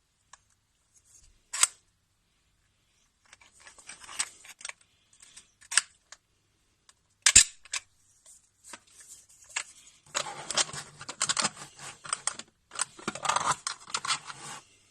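Hard plastic parts of a 3D-printed puzzle box clicking and clattering as it is handled: a few separate sharp clicks, then two stretches of dense rattling in the last five seconds.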